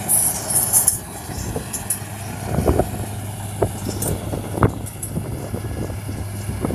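Rice combine harvester running steadily as it cuts standing rice, a low engine hum under a noisy haze, with scattered short knocks partway through.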